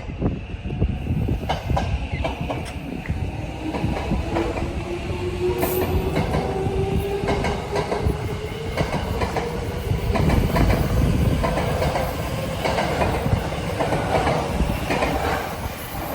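Tobu Railway electric train moving through the station, its traction motors whining in a slowly rising pitch as it gathers speed. Wheels clack over the rail joints throughout.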